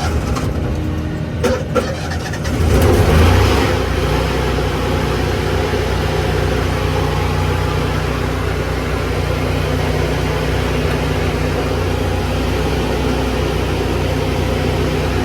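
Lincoln engine-driven welder on a service truck starting up: a few clicks, then the engine cranks and catches with a loud surge about three seconds in, and settles into steady running.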